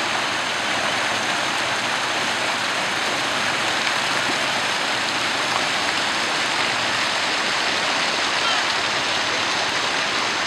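Muddy floodwater rushing and spilling over a low bank: a steady, even rush of water.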